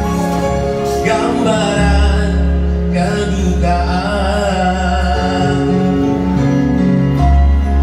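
A man singing a slow pop ballad into a microphone, accompanied by an electronic keyboard, played live through a PA with a steady bass underneath.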